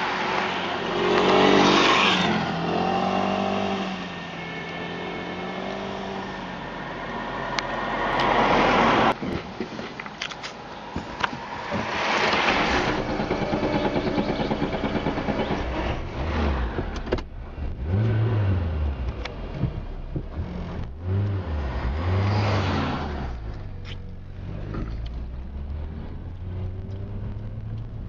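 Motor vehicles passing close by on the road one after another, the engine note dropping as the first goes past, then an engine running low and unevenly nearby.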